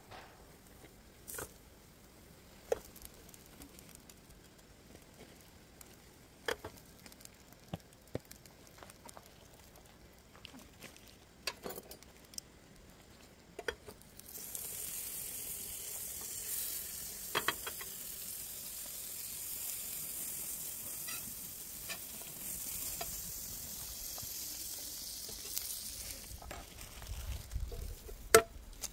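A fork clicks and scrapes now and then on a non-stick frying pan as fried meat is lifted out. From about halfway, butter sizzles steadily in the hot pan. Near the end there is one sharp knock as an egg is cracked on the pan's rim.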